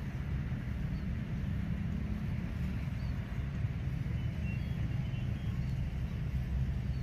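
Steady low rumble of background noise, with faint short high chirps about every second or so.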